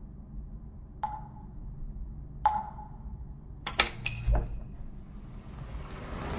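Low steady rumbling ambience with a few sharp clicks that ring briefly: one about a second in, another about two and a half seconds in, then a quick cluster of three or four a little over a second later.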